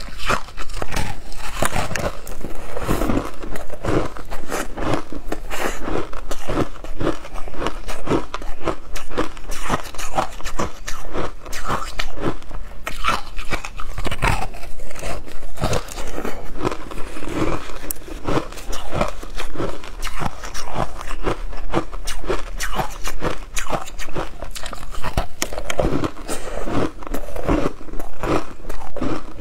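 Ice coated in matcha powder being bitten off in chunks and crunched between the teeth: dense, irregular cracking and crunching with chewing.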